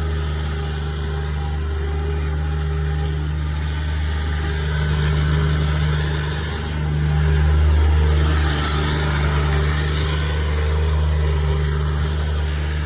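Bobcat skid-steer loader's engine running steadily, a low even drone that swells a little about seven or eight seconds in before settling back.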